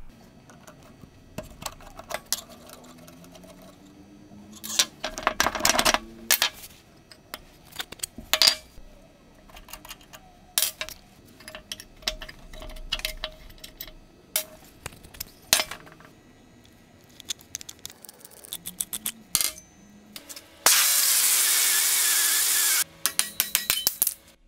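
Metallic clicks, clinks and taps as the rusted steel parts of an antique breast drill are handled and unscrewed with a wrench. Near the end comes a loud, steady, harsh noise lasting about two seconds, then a quick run of clicks.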